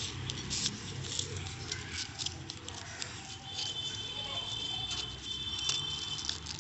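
Lined notebook paper rustling and crinkling in short, irregular crackles as it is folded and creased by hand against a stone surface. A thin, steady high tone sounds faintly in the background from about three and a half seconds in.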